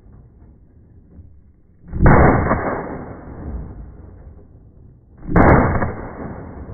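Two single gunshots about three seconds apart, each followed by a rolling echo that dies away over a second or so.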